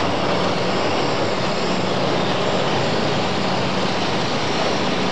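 Engine of a heavy earth-moving machine running steadily under load while it clears flood debris, a dense noise over a constant low hum.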